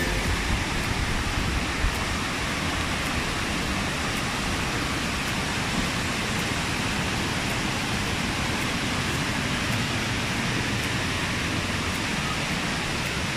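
Steady rush of water over a small waterfall and the rocky cascades of a mountain stream.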